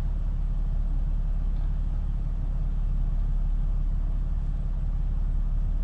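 Deep bass from a Sundown Audio X15 15-inch subwoofer playing a rap track, heard inside the car's cabin. The bass line is heavy and steady, with little of the rest of the music coming through.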